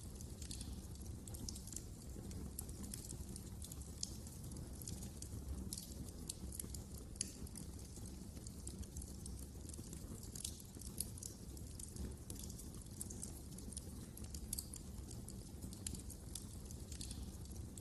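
Wood fire in a fireplace crackling, with irregular sharp snaps and pops scattered over a steady low rumble of the flames.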